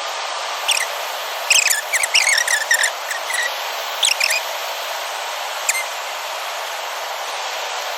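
Steady rushing of water over a spillway. Several short, high, squeaky chirps come in bunches through the first half and stop after about six seconds.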